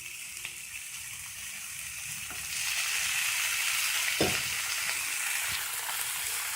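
Onion and tomato masala sizzling in a frying pan, the hiss getting louder about two and a half seconds in, with a few knocks of the stirring spoon against the pan.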